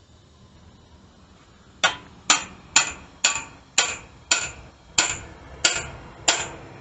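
Hammer blows driving a chisel into the sheet-steel muffler and catalytic-converter shell of a Royal Enfield Meteor 350 exhaust to cut it open: nine sharp metallic strikes about two a second, starting nearly two seconds in, each ringing briefly.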